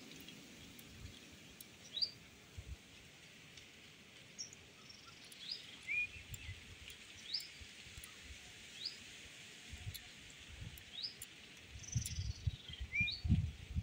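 Small birds chirping: short, sharp calls, scattered about once a second. Under them are a few soft, low knocks, which come more often near the end.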